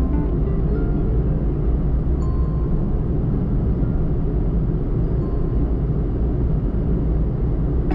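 Steady low rumble of a car driving on the road, tyre and engine noise without change, with a few faint, sparse music notes over it.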